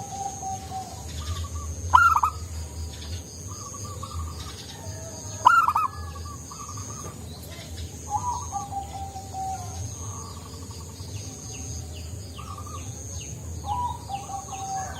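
Zebra dove (perkutut) cooing: repeated short, bubbly phrases, with the loudest bursts about two and five and a half seconds in and softer falling coos between them.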